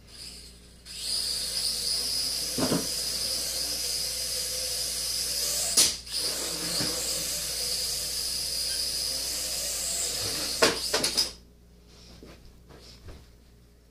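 Traxxas Alias mini quadcopter's motors and propellers whining steadily as it flies, starting up about a second in. About midway there is a sharp knock and a brief drop in the whine. A few knocks follow, and then the motors stop.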